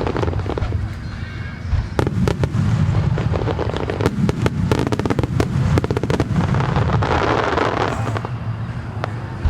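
Starmine fireworks display: a rapid volley of shells bursting in many sharp bangs over a heavy low rumble, with a dense crackling hiss about seven seconds in.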